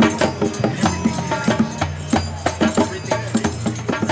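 Background music with a quick, steady percussion beat of shaken and struck rhythm instruments over a bass line.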